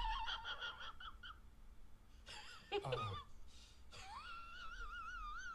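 High-pitched, warbling vocal squeals with a wavering pitch in three runs, the longest near the end, from the film clip's soundtrack.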